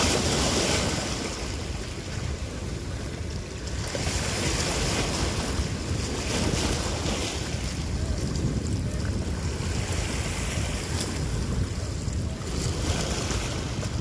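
Small sea waves washing and splashing against the boulders of a rocky breakwater, the hiss of the surf swelling and fading every few seconds, over a steady low rumble of wind buffeting the microphone.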